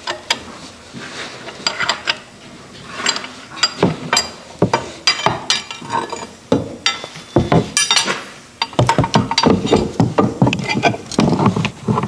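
Metal hand tools clinking and knocking against a tractor's exhaust hardware in a steady run of irregular sharp knocks, some ringing briefly. This is the clatter of wrenches and a pry bar on the mounting bolts and plate as the exhaust is loosened.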